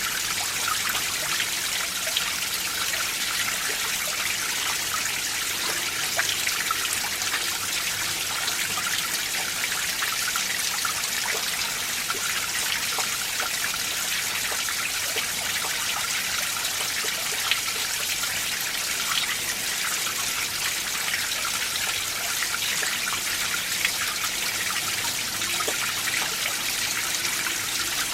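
Mountain valley stream running steadily over rocks, with continuous babbling and trickling and many small splashes.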